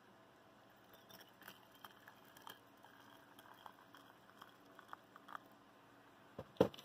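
Water poured in a thin stream into a stainless steel vacuum tumbler, pattering and clicking irregularly, then one louder knock near the end.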